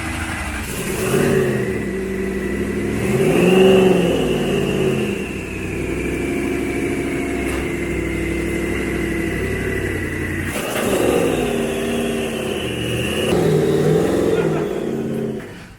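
Twin-turbo Ferrari F430 V8 engine in a Toyota AE86 running hard, its revs rising and falling several times, with a steady high whine over the engine note. It cuts off suddenly just before the end.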